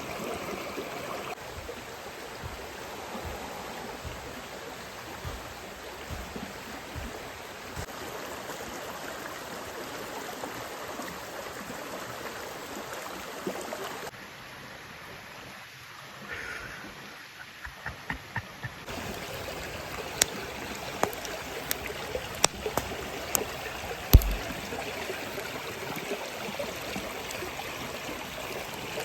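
Mountain stream rushing and burbling steadily. Sharp clicks and taps come in the second half, the loudest about three-quarters of the way through.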